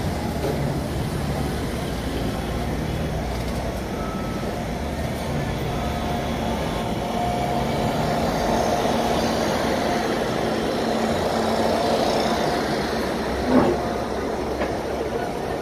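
SuperVia 500-series electric multiple-unit train running past close below, a steady rumble with a faint whine. About 13.5 seconds in there is one short, sharp sound.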